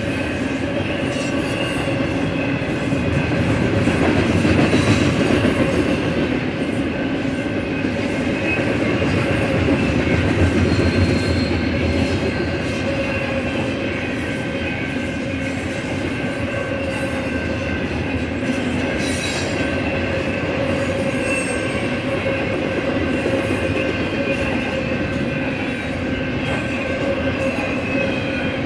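BNSF double-stack intermodal freight train rolling steadily past, a continuous rumble of steel wheels on rail with a sustained wheel squeal over it.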